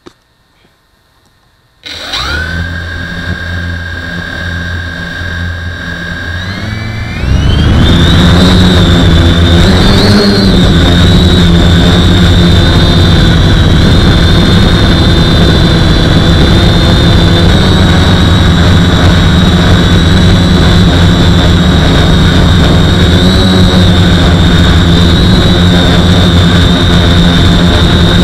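Quadcopter with four 2212 1000 kV brushless motors and unbalanced propellers, heard from its onboard camera: after about two seconds of near silence the motors spin up to a steady idle whine. About seven seconds in the pitch rises sharply as the throttle comes up for take-off, then it holds a loud, steady flight whine with slight wavers.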